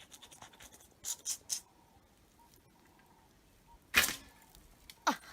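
A hunting bow being shot: one sharp, loud snap about four seconds in, after a few faint swishes about a second in.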